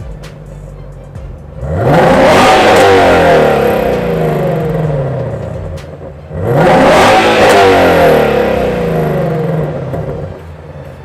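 Ford Mustang GT350's 5.2-litre flat-plane-crank V8 exhaust revved twice from idle. Each rev climbs sharply, about two seconds in and again about six seconds in, then falls back slowly before the engine settles to idle near the end.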